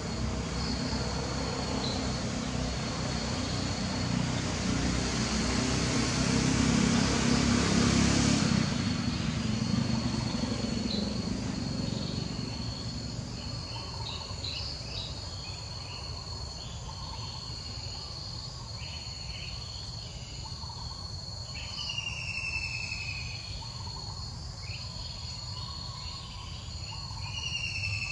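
A steady high insect trill running throughout, over a low rumble that swells and then fades out about halfway through. In the quieter second half come scattered chirps and two short falling whistled calls, like a bird's.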